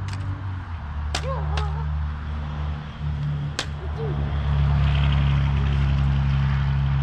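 An engine running steadily, getting louder about four and a half seconds in, with three sharp clinks over it.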